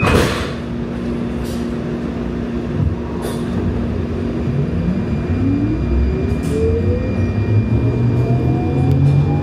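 Siemens S70 light rail car from inside: a thump as the doors shut, then the train pulls away, its traction motors whining in several tones that rise steadily in pitch from about halfway through as it speeds up, over a steady rumble.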